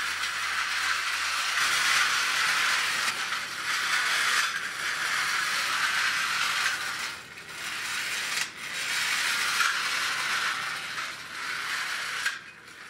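Wind-up clockwork motor of a 1960s–70s Hungarian tin toy locomotive whirring as the train runs along its tin track, a steady high-pitched mechanical whir that dips briefly a few times.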